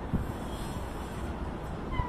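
Wind buffeting the microphone in uneven low rumbles over a steady hiss of outdoor background noise.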